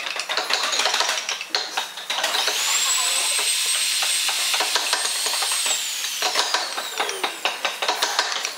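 A small electric power tool spins up with a rising whine about two seconds in, runs steadily for about three seconds, then winds down with a falling whine. Before and after it come sharp clicks and scrapes of steel carving tools on hardwood.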